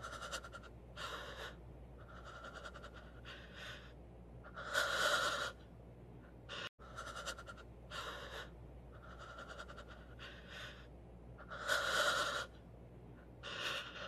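A person's heavy panting: a run of short breaths with a longer, louder gasp about five seconds in. After a brief break near seven seconds the same breathing starts over, with the louder gasp again near twelve seconds.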